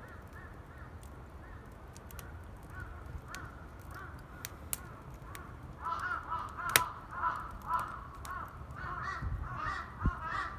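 Crows cawing repeatedly, a run of short harsh calls that grows louder about halfway through, with sharp pops and crackles from burning firewood in a campfire.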